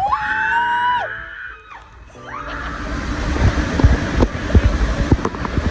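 A person lets out a long scream that rises in pitch. After a short lull comes a growing rush of water and wind with low thumps, as a water-slide ride gets under way.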